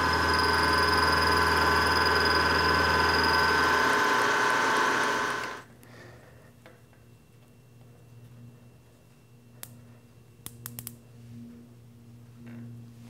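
PM-940M vertical milling machine running, its four-flute carbide end mill side-milling a flat on a steel chuck-key blank with a steady whine, cutting off about five and a half seconds in. A few faint clicks follow as a micrometer is closed on the part.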